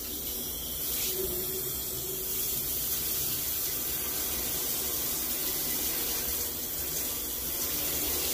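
Water from a shower running steadily as the shower is rinsed down, washing cleaning product off the walls.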